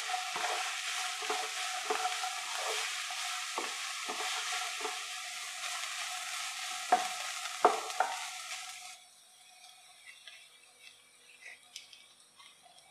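Chopped vegetables sizzling as they are stir-fried on high heat in a nonstick pan, stirred with a wooden spatula that knocks against the pan several times, two loud knocks coming near the middle. About nine seconds in, the sizzle cuts off abruptly, leaving only faint light taps.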